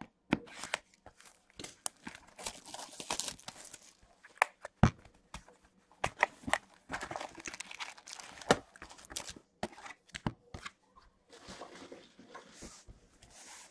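Hockey card pack wrappers being torn open and crinkled, with irregular sharp clicks and taps as the packs and cards are handled.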